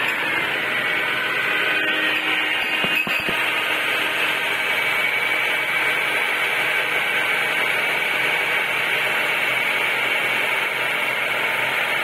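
Honda engine idling with a steady high whine from the power steering pump as ATF is poured into the power steering reservoir. There is a brief clunk about three seconds in.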